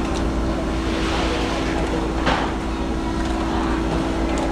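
Fishing boat's diesel engine running steadily with a low rumble and a constant hum, with one short sharp noise about two seconds in.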